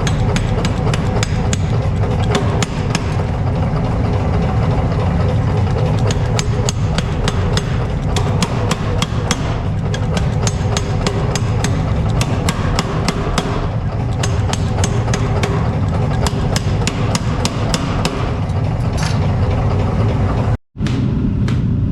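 Repeated hammer blows on steel, several a second, over a steady low machine drone. The sound cuts out for a split second near the end.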